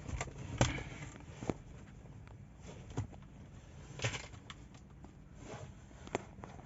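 Scattered light clicks and knocks, about a second or more apart, of hands handling plastic parts while taking off a cover in a car interior.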